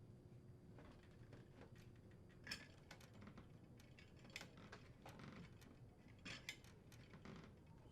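Faint, scattered clicks and light metallic scrapes of a screwdriver driving and tightening the vent hood's mounting screws, over quiet room tone.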